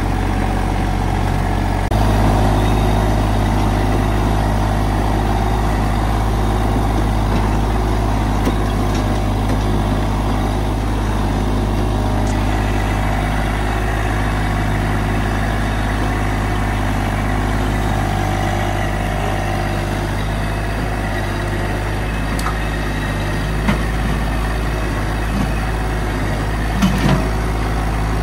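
Massey Ferguson GC1710 compact tractor's diesel engine running steadily. Its note steps up about two seconds in, and there are a few short knocks near the end.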